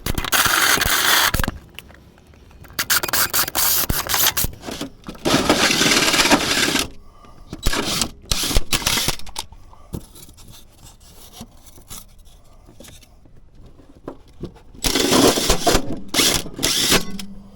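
Power drill cutting a 5-inch hole through a van floor of plywood over insulation, run in five bursts of one to two seconds with pauses between.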